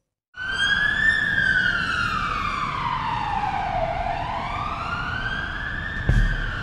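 Intro sound effect: a siren-like sweeping tone over a hiss that rises briefly, glides slowly down for about three seconds, then climbs back up. Low thumps come in near the end.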